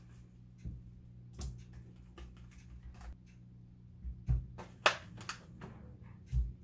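Scattered clicks and light knocks of a plastic strawberry clamshell being handled while strawberries are dropped into a bowl of water, with a sharp click about five seconds in and a couple of dull thumps. A low steady hum runs underneath.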